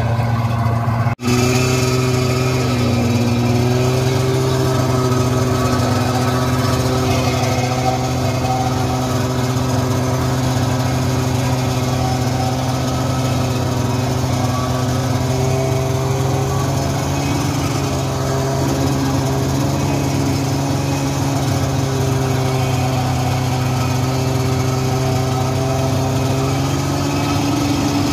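Polaris Widetrak LX snowmobile engine running steadily as the machine is ridden, its pitch holding nearly level with small rises and falls. The sound drops out for an instant about a second in.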